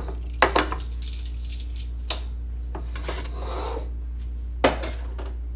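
Metal tongs clinking against a skillet and a serving bowl while stir-fried beef is dished up, with a few sharp knocks as the pan is moved: separate clinks about half a second, two seconds and nearly five seconds in.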